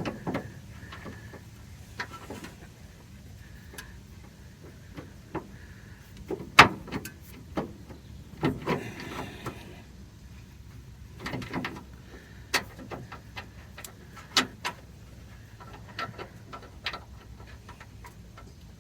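Scattered clicks, clinks and knocks of hand tools and metal car parts being handled, the sharpest knock about six and a half seconds in, over a low steady hum.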